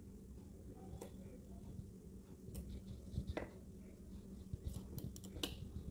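Metal knitting needles clicking and tapping against each other now and then as stitches are knitted, with a cluster of clicks near the end, over a faint low hum.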